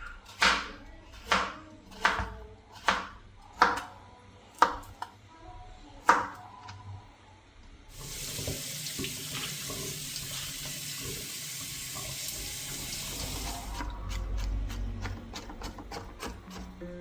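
A knife chopping on a cutting board, about seven even chops in the first six seconds. After a short pause a kitchen tap runs water into the sink for about six seconds, followed by a few light clatters.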